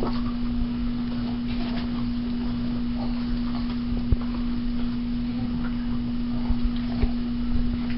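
A few short hiccups a few seconds apart, over a steady hum.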